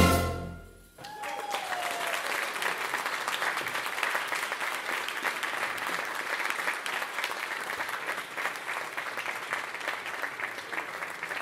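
The jazz band's last note dies away, and from about a second in an audience applauds steadily.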